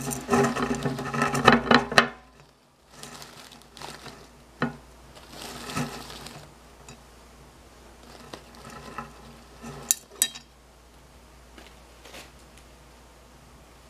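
Small white decorative pebbles poured into a tall glass vase: a dense rattling patter for about two seconds, then scattered clicks and short trickles as stones drop in and settle against the glass.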